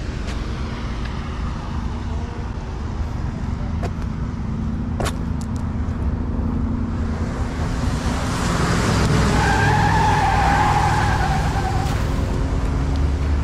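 Highway traffic with an engine running steadily, a few sharp clicks about five seconds in. Past the middle, a tractor-trailer comes through at speed: a rush of noise builds to its loudest with a wavering tyre squeal, then eases off.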